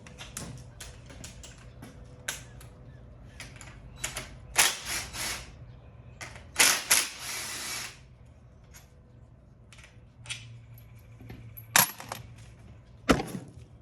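Hand tools and small metal parts clinking and knocking during bolt removal on a dirt bike: scattered sharp clicks, a longer scraping rattle about halfway through, and two sharp metal knocks near the end.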